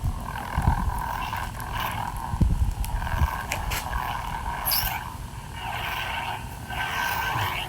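Xeno Pixel V3 lightsaber playing its Shin Hati sound font through its built-in speaker: a hum that swells and fades with swings several times, with a couple of low thumps about a second in and midway.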